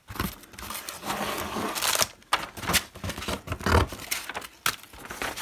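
Cardboard box and plastic-wrapped craft packs being handled: irregular rustling and scraping of cardboard, with light knocks.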